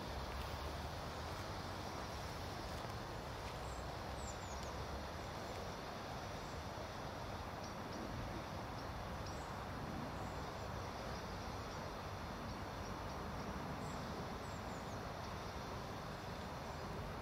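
Pyroland Giga Smoke 300 white smoke flare burning with a steady hiss.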